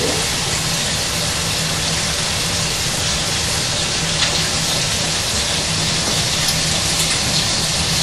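Bacon sizzling in a frying pan, a steady even hiss, with a steady low hum underneath.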